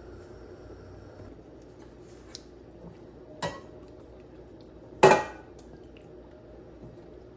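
Cookware knocking during cooking: two sharp clinks of metal utensils against a pot, the second louder with a short ring, amid a few faint ticks.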